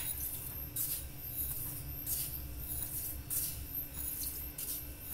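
Sugar being poured from a ceramic bowl into a stainless steel mixer jar holding lemon juice and water: a soft granular hiss that comes in several short spurts about a second apart.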